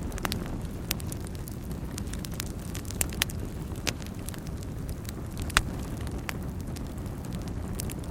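Wood fire burning in a fireplace: a steady low rush of flame with scattered sharp crackles and pops, a few close together around three to four seconds in and the loudest pop at about five and a half seconds.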